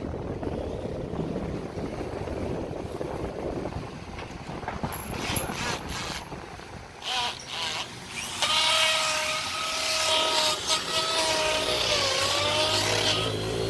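Low machine rumble with a few knocks, then about eight seconds in a motor starts up and runs with a steady whine and a strong hiss; its pitch sags briefly and comes back.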